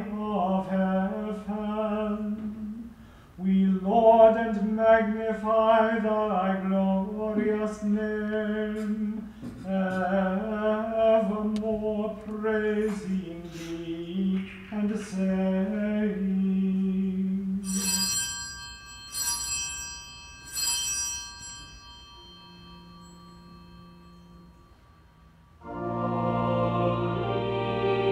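A man's voice chants a solemn unaccompanied plainsong phrase; this fits the priest singing the end of the Eucharistic Preface. A small bell is then struck three times, each stroke ringing on, which fits sanctus bells rung at the Sanctus. Near the end, organ and choir begin.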